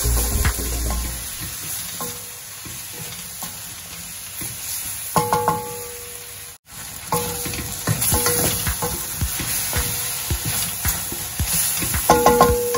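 Wooden spatula stirring and scraping chicken pieces with onion and garlic around a stainless steel wok, over a steady sizzle of frying. A few sharper knocks against the pan about five seconds in and near the end.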